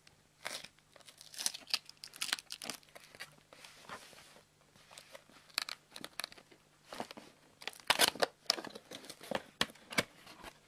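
A cardboard product box being opened by hand: flaps and tuck tab pulled loose, with irregular scraping, crinkling and snapping of cardboard, loudest about eight seconds in.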